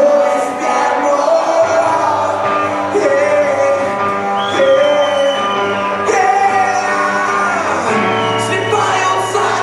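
Live rock band playing, with sung and shouted vocals over sustained electric chords.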